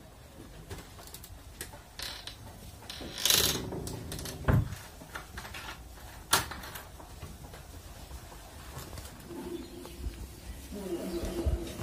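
Wooden wardrobe door being opened and things inside handled: scattered clicks and knocks, a rustle about three seconds in, a dull thump a second later, and a sharp click a couple of seconds after that.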